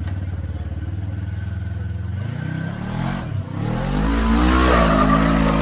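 Side-by-side UTV engine pulling under load up a steep rock chute: it runs steadily at first, the pitch wavers and dips, then it revs up and gets louder about four seconds in.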